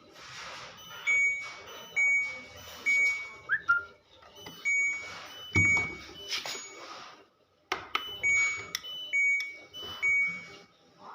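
Electronic beeps from a front-load washing machine's buzzer: a short pattern of high, square-edged tones that plays, stops briefly, then repeats. Loud noisy bursts run under the beeps.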